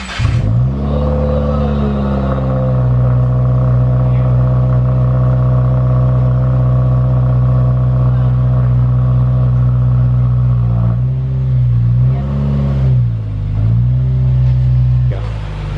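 2016 Subaru WRX's turbocharged 2.0-litre flat-four engine starting through a freshly fitted Nameless axle-back exhaust with a 4-inch muffler. It catches, its revs rise and settle to a steady idle, and near the end it is revved briefly a few times.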